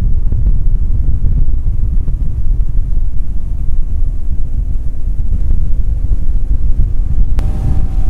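Bass boat running at speed: heavy wind buffeting on the microphone over the low drone of the outboard motor. About seven seconds in, the motor's steady hum comes through more clearly.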